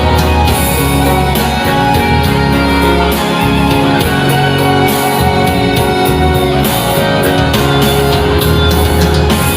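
Live band playing the instrumental intro of a song, with steady bass notes and a regular beat.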